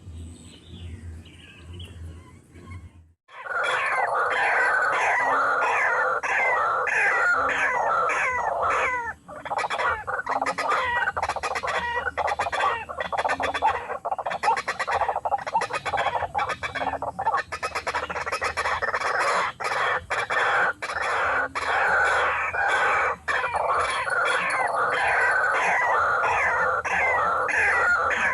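White-breasted waterhen calls: a loud, fast, endlessly repeated harsh croaking chorus that starts abruptly about three seconds in, after faint bird and insect sounds.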